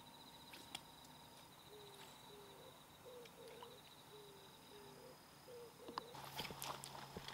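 Faint outdoor ambience: a steady high insect-like trill, with a run of short low animal calls about two a second through the middle. Several clicks and rustling come near the end.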